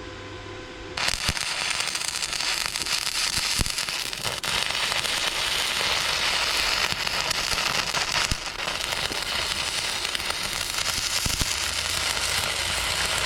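Electric arc welding on the steel trailer frame: a steady, loud crackling of the arc as a bead is run, starting suddenly about a second in, with a brief break about four seconds in. The bead strays off the joint, running along the top edge instead of in the gap.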